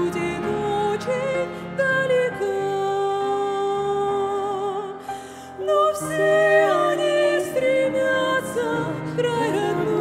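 Two women singing a slow Russian Christian song in duet over a gentle instrumental accompaniment. They hold long notes with vibrato, with a short pause about halfway through.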